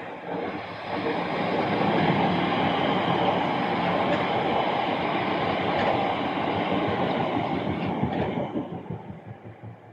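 A train passing: a steady rushing rumble of wheels on rails that builds over the first couple of seconds, holds loud, then fades away over the last two seconds.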